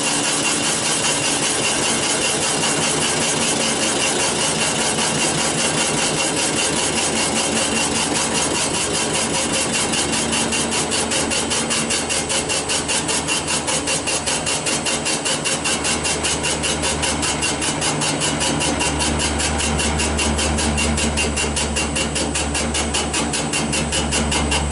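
Comec CNC cylinder boring machine cutting through an engine block's cylinder bore: a steady metal-cutting whine and hiss with an even pulse about five times a second. A deeper hum joins in about two-thirds of the way through. The cutting stops suddenly at the end as the boring bar reaches the bottom of its cut.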